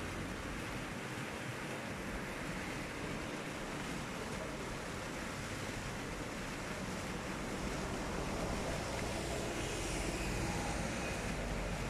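Several fountain jets splashing down into the basin, a steady rush of falling water.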